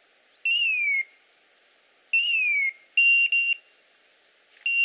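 Electronic beeper on a hunting dog's training collar sounding: two falling tones, each about half a second long, then short steady beeps in pairs.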